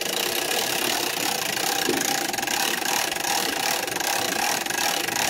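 A motor running steadily with a fast, even rattle, starting abruptly just before and holding at one level throughout.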